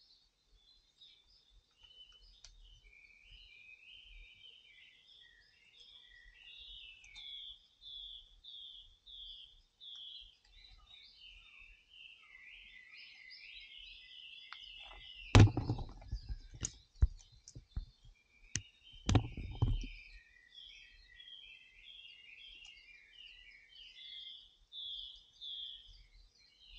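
Small birds chirping continuously in quick series of short, high notes, with a cluster of sharp knocks a little past halfway and another knock a few seconds later.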